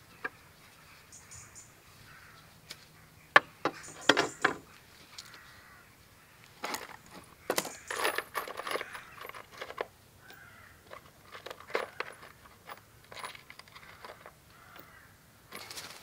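Handling noises from assembling wooden kit parts: scattered sharp knocks of wooden boards and clinks of small metal fittings, loudest in two clusters, one about 3 to 4 seconds in and one about 7 to 9 seconds in.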